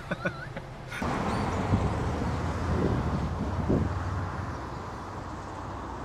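Road traffic noise: a vehicle's tyres and engine rumbling past, loudest for a few seconds and fading near the end.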